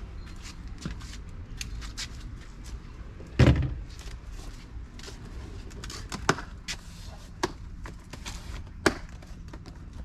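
Scattered knocks and clicks from unpacking a boxed patio table, with one heavy thump about three and a half seconds in and a few sharper clicks later.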